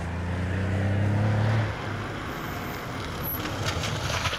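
Car driving fast on a dirt road, its engine note rising slightly and then dropping away after about a second and a half. That leaves a rushing noise of tyres on loose gravel, which turns crackly near the end.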